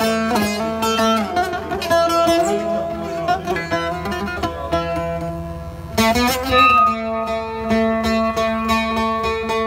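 Instrumental Turkish folk music: a plucked string melody over held notes, with a strong new phrase coming in about six seconds in.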